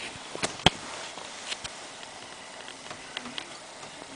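Quiet room hiss with a few light, sharp clicks and taps. The two clearest come close together about half a second in, and fainter ones follow later.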